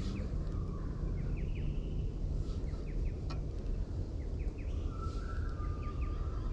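Small birds chirping in short falling notes over a steady low outdoor rumble, with a single sharp click about three seconds in and a held high note from about five seconds in.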